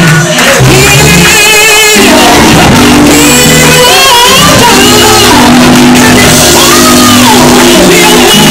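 Live band music with a drum kit, very loud, under voices shouting and singing.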